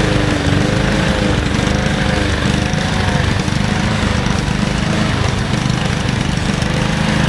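Small four-stroke lawn mower engine running steadily at a constant speed, lubricated with lard in its crankcase instead of motor oil.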